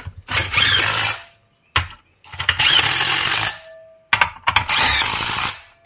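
Cordless power tool running the 17 mm tension bolts down into a Mazda 13B rotary engine's stacked housings, in three runs of about a second each with short pauses between, the middle run the longest.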